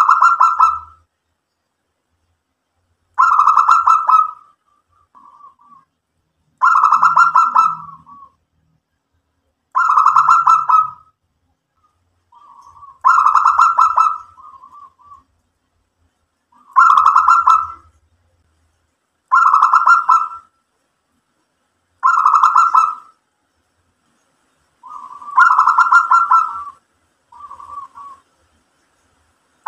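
Zebra dove (perkutut) cooing its song: nine phrases, each a rapid run of notes about a second long, coming roughly every three seconds, with a few softer short notes between some of them.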